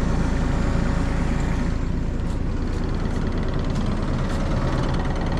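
Excavator diesel engine running steadily at idle, with faint light ticks about twice a second in the second half.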